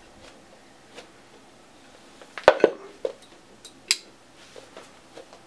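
Scattered knocks and clicks of a Whirlwind IMP 2 direct box being handled and set down on a wooden tabletop, the loudest a double knock about two and a half seconds in and a sharp click near four seconds.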